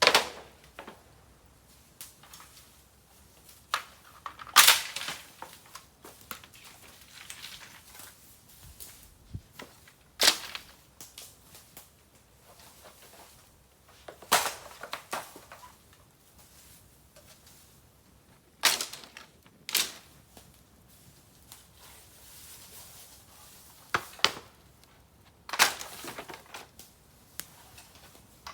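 Bamboo burning in an open fire: irregular sharp cracks and pops every few seconds as the heated bamboo splits, several drawn out for about half a second, between them only faint crackling.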